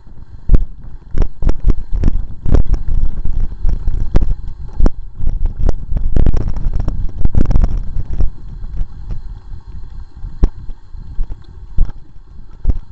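Mountain bike rolling down a rough dirt trail, heard from an action camera riding on the bike: an irregular clatter of knocks and rattles as the bike and camera mount jolt over bumps, over a low rumble. The rattling is thickest in the middle and thins out near the end.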